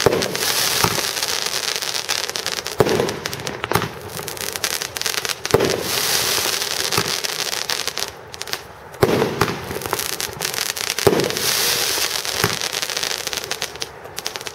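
Pyro-Art Vidar firework cake firing shot after shot, about one every one to two seconds. Each shot is a sharp bang, with a steady crackling hiss of the bursts and tails between them.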